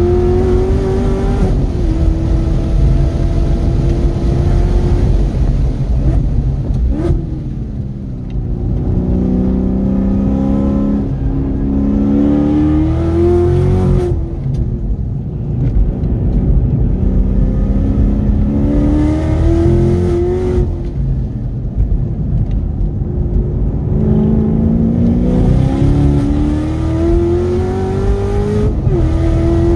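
The supercharged 6.2-litre V8 of a 2018 Chevrolet Camaro ZL1 1LE, heard from inside the cabin, pulling hard at full throttle with its pitch rising through the revs. It drops back at each shift and when the car slows for corners, then climbs again several times over.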